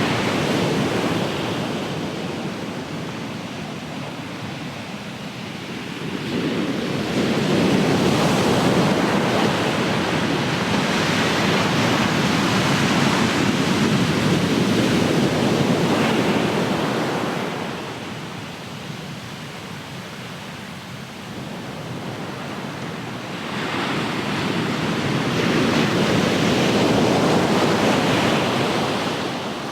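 Ocean surf: waves break and wash up the shore in slow, rising and falling surges, three in all, the middle one lasting about ten seconds.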